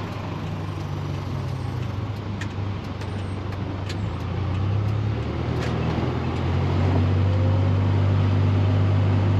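Diesel pickup truck driving, engine drone and road noise heard from inside the cab, growing louder about halfway through.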